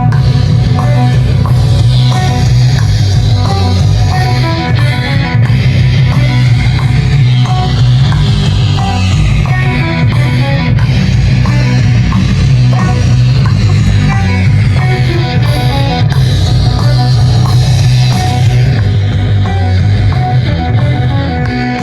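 A loud rock track with guitar over a moving bass line, playing continuously.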